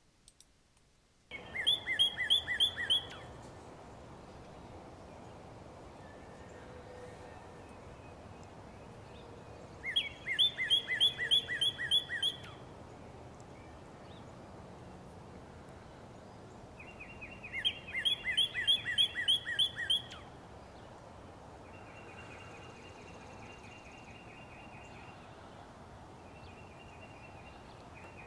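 Northern cardinal singing: three bouts of rapidly repeated slurred whistles, about eight seconds apart, then fainter trilled phrases twice near the end, over a steady background hiss.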